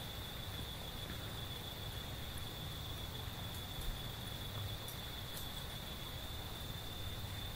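Insects trilling in one steady, unbroken high note, over a low rumble.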